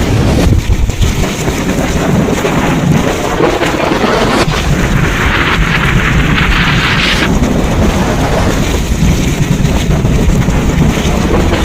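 Thunderstorm: steady rain with low rolling thunder rumbling underneath. A harsher hiss swells for a few seconds in the middle.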